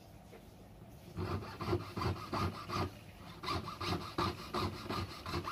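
A hand tool worked back and forth in rhythmic rasping strokes, like sawing or filing at a workbench, about three strokes a second. It starts about a second in and pauses briefly near the middle.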